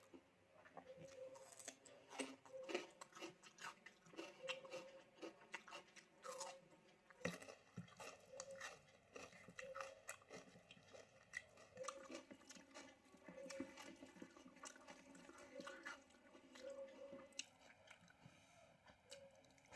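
Faint, close-miked chewing of food, with many small crunches and mouth clicks.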